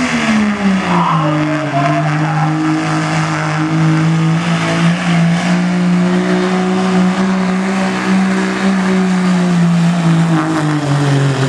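Diesel pickup truck engine held at high revs under full load while dragging a weight-transfer sled, a steady drone whose pitch sags about a second in and again near the end.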